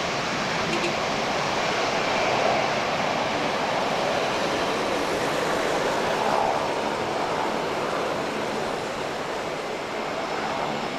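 Air France Boeing 747-300's four jet engines at takeoff thrust on the takeoff roll, a steady rushing roar that eases slightly near the end as the jet pulls away.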